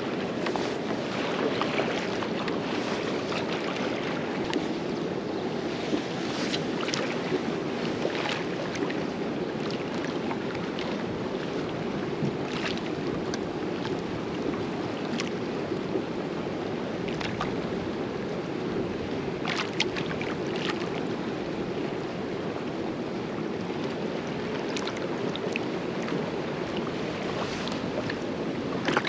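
Small waves slapping and lapping against a kayak's hull over choppy water, with a steady rush of wind and scattered short splashes.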